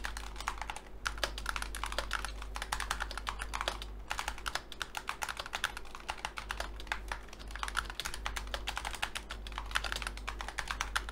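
Fast typing on a mechanical gaming keyboard with PBT keycaps: runs of rapid key clicks broken by short pauses.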